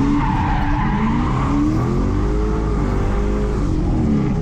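A 2007 Ford Mustang's engine revving up and down hard under throttle as the car slides, with tyre squeal from the sliding tyres.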